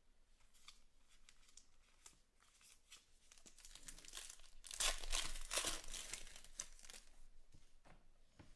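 Wrapper of a 2019 Panini Stars & Stripes baseball card pack being torn open and crinkled by hand, loudest from about four and a half to seven seconds in. Light clicks of cards being handled come before it.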